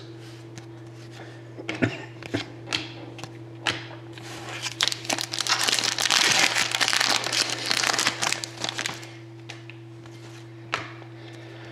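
A trading-card pack's wrapper being opened, crinkling and tearing, densest in the middle, with the cards inside handled in short clicks and taps before and after. A steady low hum runs underneath.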